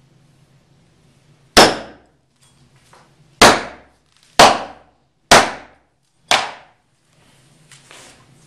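Small wooden-handled hatchet striking a hard floor five times, about a second apart, each blow a sharp crack that dies away quickly. A fainter knock near the end.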